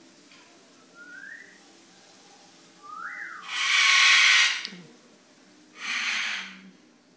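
Ultra-micro RC aircraft's electric motor whining up in pitch twice, followed by two loud, hissy rushes of noise, the first the louder.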